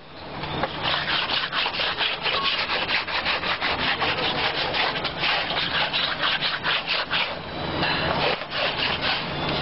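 Scrubbing of a wet rubber inner tube, a rough rubbing sound in quick, rhythmic strokes that pause briefly near the end.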